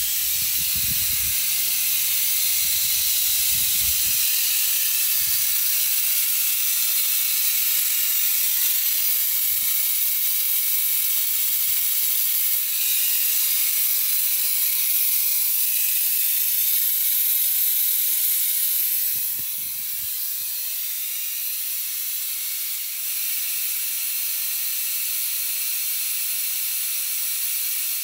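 Refrigerant hissing out of a 2015 Trane XR14 air conditioner whose compressor terminals have blown: a loud, steady hiss that eases slightly about two-thirds of the way through.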